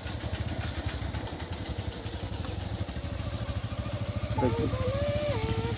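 Small commuter motorcycle engines running slowly at low revs, a steady fast low putter. A higher wavering tone joins about four seconds in.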